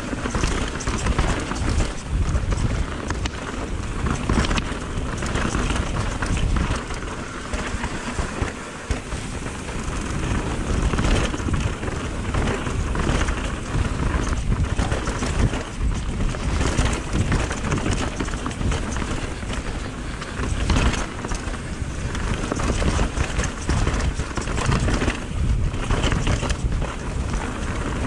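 Mountain bike riding down a dirt singletrack: a steady hiss and rumble of knobby tyres over dirt and dry leaves, with frequent knocks and rattles from the bike over roots and rocks, and wind buffeting the action camera's microphone.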